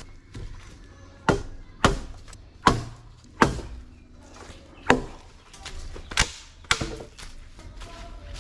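About seven sharp chops, irregularly spaced roughly a second apart: a blade striking wood.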